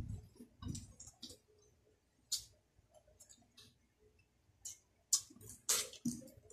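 Close-up eating sounds: scattered wet mouth clicks and lip smacks with soft chewing thumps, as corn on the cob and rice are eaten by hand. A louder cluster of smacks comes about five to six seconds in.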